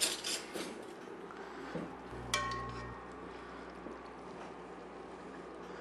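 A metal spoon against an enamelled cast-iron pot: a few soft clicks, then one sharp, ringing clink a little over two seconds in.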